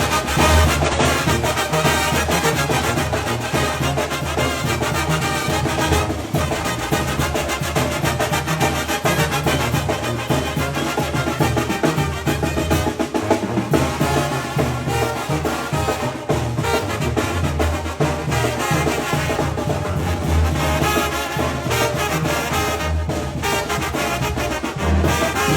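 Mexican banda music: a brass band with trumpets and trombones playing over drums, steady and full throughout.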